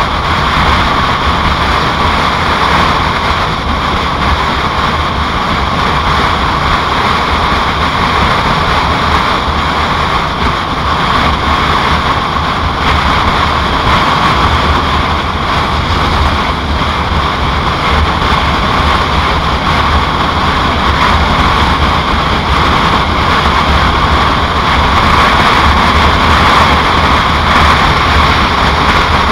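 Steady rush of wind and road noise from riding a 2007 Yamaha Royal Star Tour Deluxe motorcycle at a steady speed, with a low engine drone underneath.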